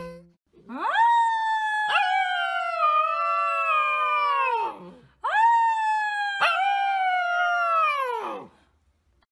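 A husky-type puppy howling: two long howls, each swooping up at the start, holding a high pitch with a brief break in the voice partway through, and sliding down at the end.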